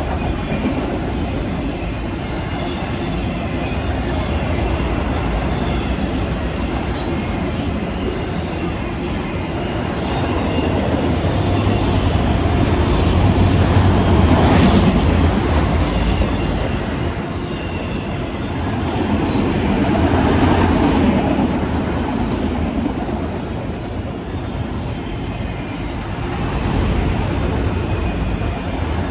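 CSX freight train rolling past, its cars' wheels rumbling on the rails, the noise swelling and easing as the cars go by.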